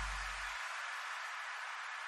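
Background music fading out, its bass cutting off about half a second in, leaving a steady hiss.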